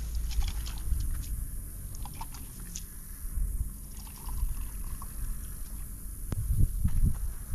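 Water poured from a plastic bottle into a small cup, with wind rumbling on the microphone.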